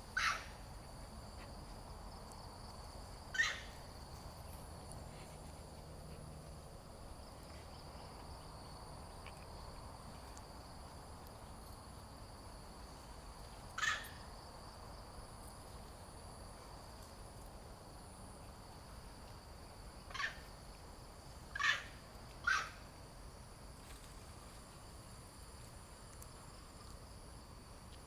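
Six short, sharp animal calls at uneven intervals: one at the start, one about three seconds in, one near fourteen seconds, then three close together around twenty to twenty-three seconds. A steady high insect drone runs underneath.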